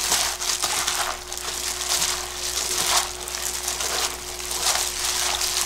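A plastic-gloved hand kneading and tossing boiled cabbage and green onion with a wet seasoning paste in a stainless steel bowl. Wet squishing and crinkling come in repeated strokes about once a second as the seasoning is worked into the vegetables.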